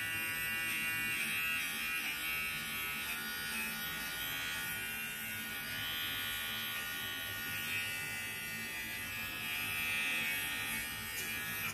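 Wahl Mini Arco cordless pet trimmer running with a steady electric buzz while shaving the fur around a small puppy's paw pads.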